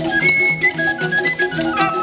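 Music with a steady beat and held melody notes.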